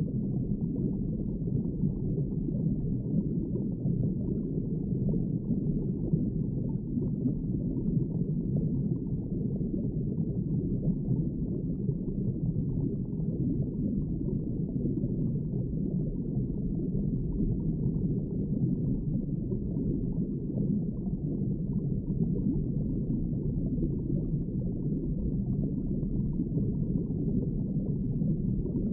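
Underwater ambience: a steady, muffled low rush of water with no distinct events, heard as from below the surface.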